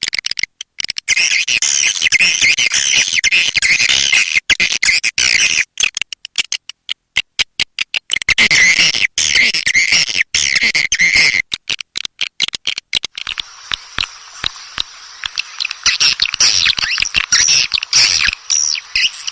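Recorded swiftlet calls, a dense chirping twitter of the kind played as a lure sound in swiftlet houses, chopped by frequent abrupt cut-outs. About two-thirds of the way through the sound changes to a different stretch of calls over a faint steady hum.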